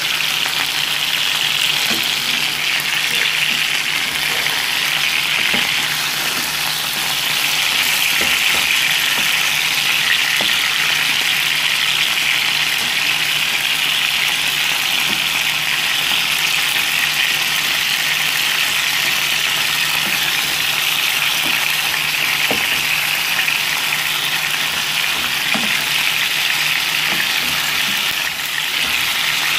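Chicken pieces sautéing in hot oil in a frying pan: a steady sizzle with small crackles, stirred now and then with a wooden spoon.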